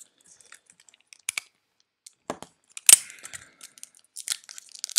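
Trading cards and a foil pack wrapper being handled: scattered sharp clicks and light crinkling, with a duller knock a little past two seconds in and the loudest sharp snap about three seconds in.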